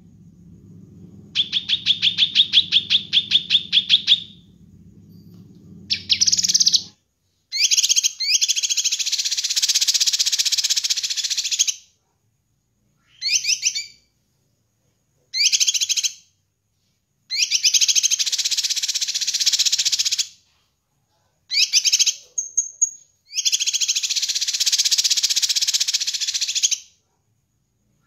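Cucak kinoi (leafbird) singing loudly: first a fast run of about ten sharp repeated notes a second, then a string of dense, chattering warbled phrases, each one to four seconds long, with short silent gaps between them.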